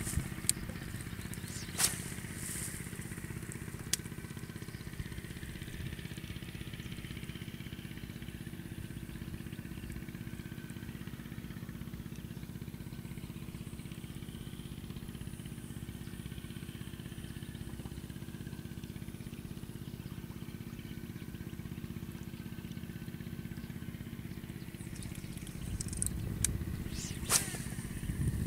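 A small engine running steadily at one even pitch, with a few sharp clicks, more of them near the end.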